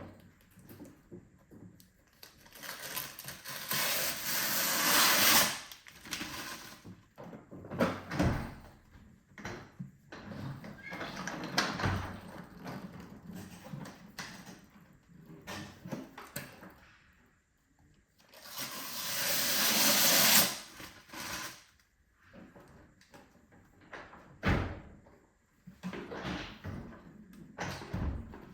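Unboxing handling noise: two long scraping or rustling swells, one about three seconds in and one about eighteen seconds in, each growing louder and then cutting off suddenly, with several sharp knocks between them.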